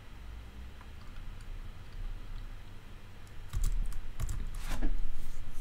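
Computer keyboard keys clicking: a few scattered keystrokes and short flurries in the second half, after a quiet stretch.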